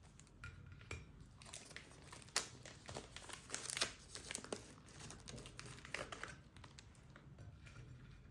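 Crinkling and tearing of packaging handled up close: a string of irregular crackles.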